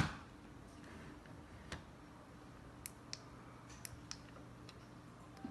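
Small plastic push-buttons on a thermal rifle scope clicking as the menu is stepped through: one sharp click, then about seven lighter clicks at uneven intervals. A faint steady hum runs underneath.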